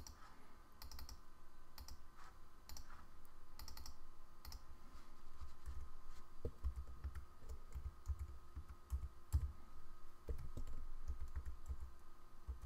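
Typing on a computer keyboard: irregular keystrokes, some in quick runs, as text is entered, over a faint steady hum.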